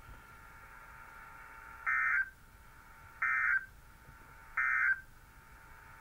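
NOAA Weather Radio sending its Emergency Alert System end-of-message code: three short, identical bursts of warbling data tone, about a second and a half apart, over faint receiver hiss.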